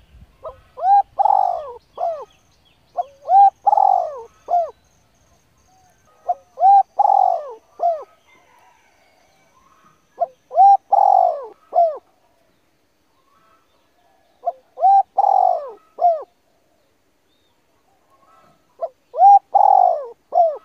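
A bird calling the same short phrase of several curved notes over and over, about once every four seconds.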